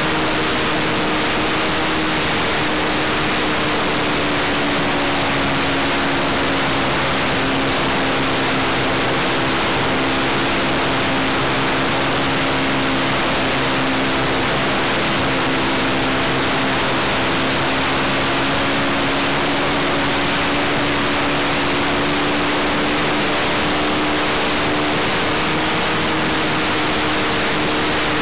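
Great Planes Cosmic Wind RC model plane in flight, heard from on board: its OS 95V glow engine running steadily under loud rushing wind noise, the engine note sagging slightly and rising again partway through.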